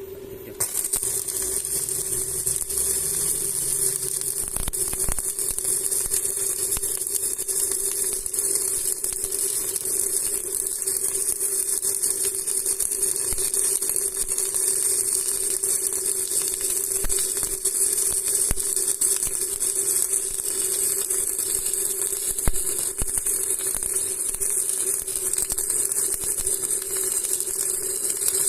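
Stick (SMAW) welding arc burning steadily: a dense, even crackle that starts abruptly about a second in as the rod is struck, over a steady hum.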